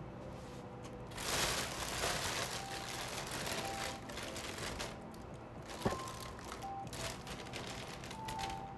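Rustling and crinkling close to the microphone as things are handled, starting about a second in, with a sharp click about six seconds in.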